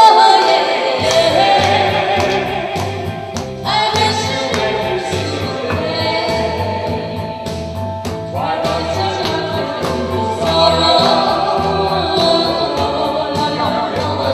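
A man and a woman singing a duet into microphones over a karaoke backing track with a steady beat, the sung lines coming in phrases.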